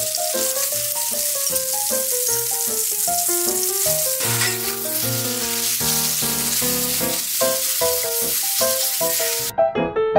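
Ground pork and spinach sizzling in hot oil in a wok as they are stir-fried, over light piano music. The sizzling stops abruptly near the end, leaving only the music.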